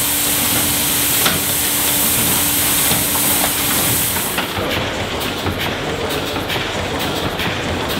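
Steam hissing steadily at a Cornish boiler, with a steady hum under it. About four seconds in this gives way to a 600 hp William Roberts cross compound mill steam engine running, with regular knocks about once a second.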